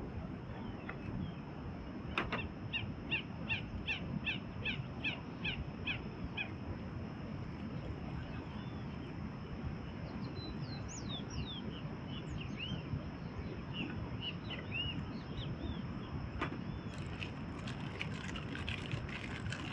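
A bird calling: a fast run of about a dozen short, repeated, down-slurred notes, about three a second, a few seconds in, then scattered chirps later, over a steady rushing background.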